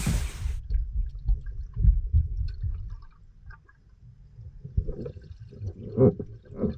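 Underwater sound of a swimming pool picked up by a submerged camera: a rushing splash that cuts off about half a second in as the camera goes under, then muffled low rumbling and knocking of moving water. Bubbles gurgle through the last couple of seconds.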